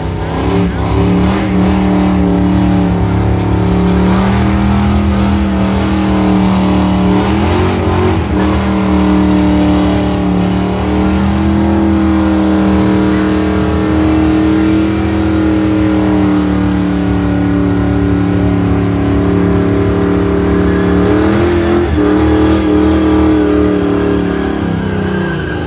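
American muscle car's V8 held at high revs during a burnout, the rear tyres spinning in place and smoking. The engine note holds steady, dips briefly twice (about eight seconds in and about twenty-one seconds in), and falls away right at the end.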